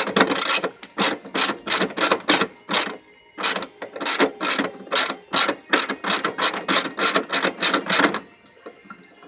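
Socket ratchet wrench clicking in fast, even strokes, about four a second, as a battery fastener is worked, with a brief pause about three seconds in; the clicking stops a little after eight seconds.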